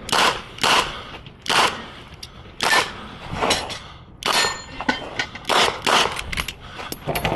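A Smith & Wesson 929 9mm revolver fired in a fast string of shots, roughly one every half second to a second, with short metallic pings of bullets striking steel targets after some of the shots.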